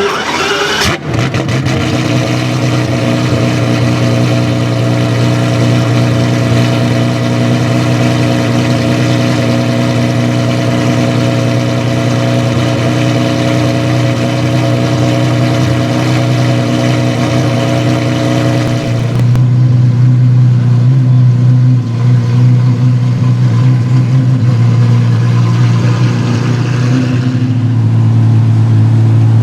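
Apollo IE's naturally aspirated V12 idling steadily with a deep, even drone. About a second in the sound changes abruptly. Around twenty seconds in the higher tones fall away and the low drone grows louder.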